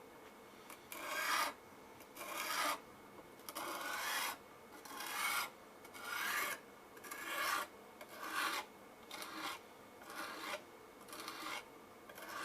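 A 600-grit sharpening stone on a fixed-angle jig drawn across a knife edge in about eleven even rasping strokes, roughly one a second, growing somewhat softer toward the end.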